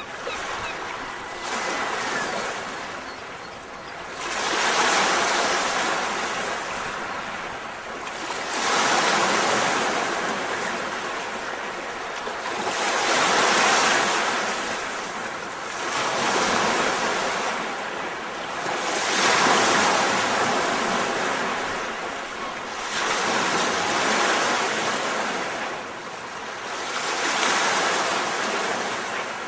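Waves washing onto a shore. Each wave swells and falls back, about every four seconds.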